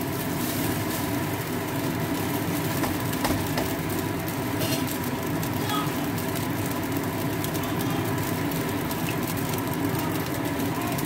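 A steady mechanical hum with several constant tones, with a few light knocks as the rice is stirred in the pan.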